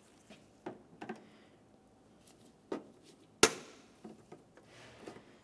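A flat-blade screwdriver clicking and tapping against a plastic push clip on a car's trim panel as the clip is pried up, a handful of separate clicks with one much sharper snap about three and a half seconds in.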